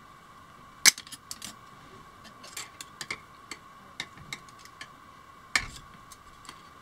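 Steel pliers and stiff wire clicking and clinking while the wire is bent into loops by hand, in irregular sharp metallic ticks. The loudest click comes about a second in and another about five and a half seconds in. A faint steady high tone runs underneath.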